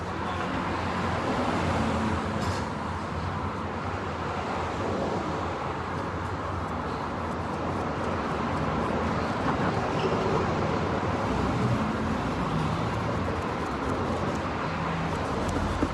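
Steady outdoor background noise: a constant low rumble and hiss with no distinct events, of the kind that distant road traffic gives.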